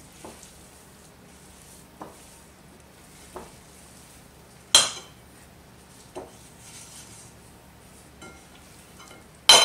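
Spatula stirring thick chocolate chip cookie dough in a glass mixing bowl, with scattered knocks and clinks of the spatula against the glass; the loudest come about halfway through and near the end.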